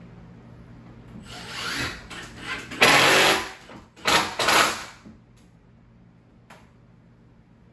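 A hand tool scraping and rubbing against the overhead ceiling beam in several rough bursts, the two loudest about three and four and a half seconds in, then stopping.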